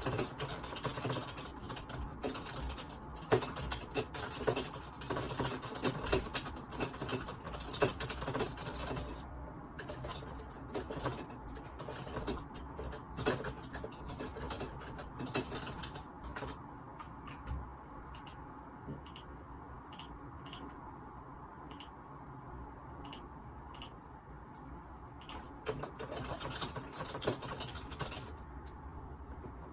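Typing on a computer keyboard, recorded through a phone microphone: a fast run of key clicks, thinning out after about nine seconds to scattered single clicks, with a brief run of typing again near the end.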